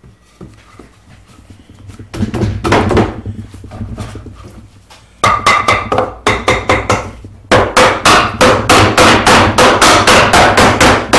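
Claw hammer striking a scrap wood block laid on pine inlay boards, knocking the tight-fitting glued boards down flush into a table-top frame. Scattered blows start about two seconds in and quicken, settling into a steady run of about four blows a second.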